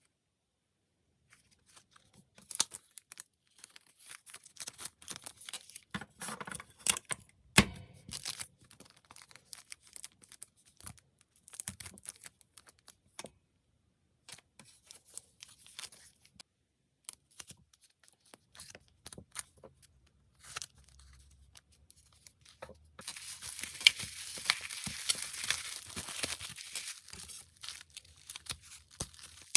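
Packing materials being handled: plastic wrap and packaging crinkling and tearing in short irregular rustles, with a few sharp clicks. About three-quarters of the way in, this turns into a longer unbroken stretch of rustling and tearing.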